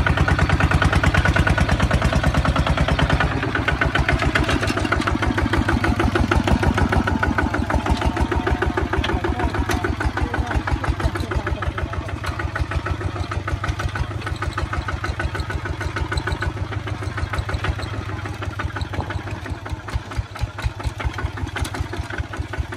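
Kubota two-wheel walking tractor's single-cylinder diesel engine running with a rapid, even chugging beat while pulling a trailer. About three seconds in it drops back to a quieter, steady run and then eases gradually slower and quieter toward idle.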